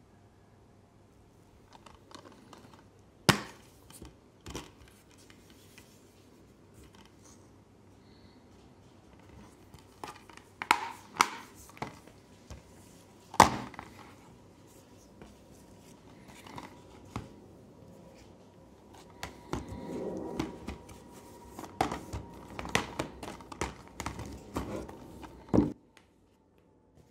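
Plastic Blu-ray cases being handled: scattered sharp clacks as they are picked up, set down and knocked together, with light rubbing and scraping in between. The clacks come thicker over the last few seconds.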